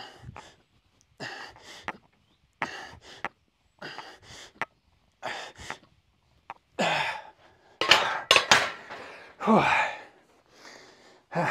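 A man's heavy breathing through a set of barbell front squats: a short, forceful exhale about every second and a half, one per rep, turning into louder, strained gasps and groans over the last few seconds. A few sharp clicks come about eight seconds in.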